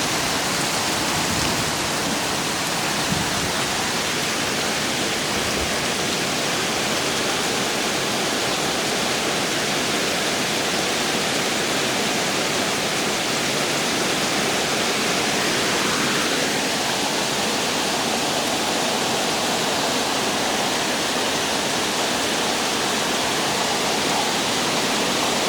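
Heavy rain pouring down steadily in a loud, unbroken hiss.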